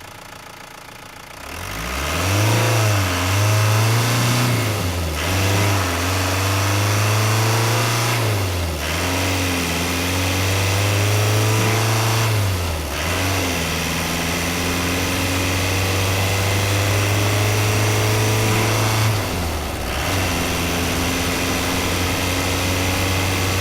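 Renault Master II van's diesel engine accelerating: after a quieter first second or so the engine note comes up and climbs slowly, dipping briefly about four times as it runs up through the gears, then holds a long, steady, gradual rise in pitch.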